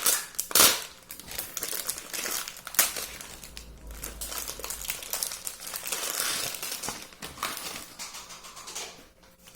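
Crinkling of a plastic pasta packet, with irregular sharp clicks and snaps as dry lasagna sheets are handled and laid in the pan.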